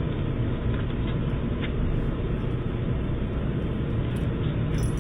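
Steady low rumbling outdoor background noise picked up by a Ring doorbell camera's narrow-band microphone, with a few faint ticks.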